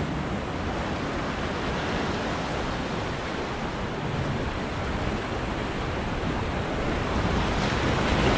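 Ocean surf washing and breaking against the jetty's rocks, a steady rushing noise with wind on the microphone, growing a little louder near the end.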